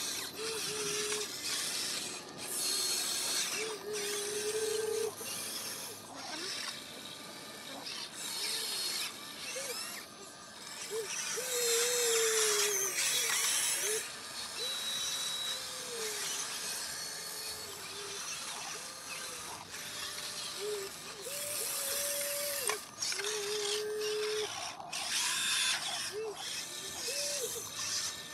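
Electric motors and gearboxes of a Huina radio-controlled excavator whining in short spells, each rising, holding and falling in pitch as the boom, arm and bucket move, over a gritty mechanical rattle.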